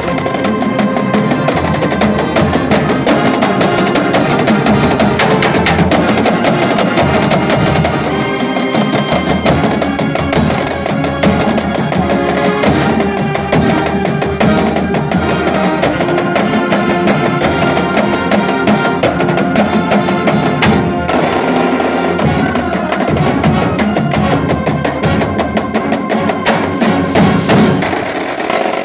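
A full marching band playing loudly: flutes and brass holding sustained chords over busy drumline and front-ensemble percussion with rapid strikes throughout.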